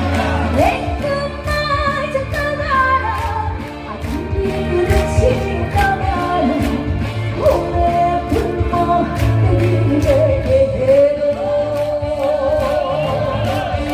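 A woman singing a Korean trot song live over a backing track with a steady beat and bass, the melody held with vibrato.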